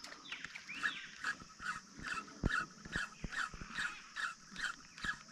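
An animal calling over and over in an even rhythm, about two to three short calls a second, with a few soft knocks in between.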